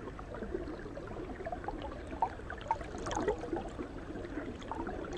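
Faint gurgling, trickling water with scattered small bubbling blips.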